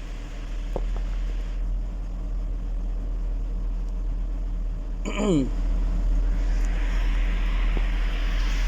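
2007 GMC Yukon XL's V8 engine running steadily at idle, which the mechanic says has stopped misfiring now that the broken wiring feeding one bank of cylinders has been rejoined. A brief falling squeal comes about five seconds in, and a rushing noise grows louder from about six and a half seconds in.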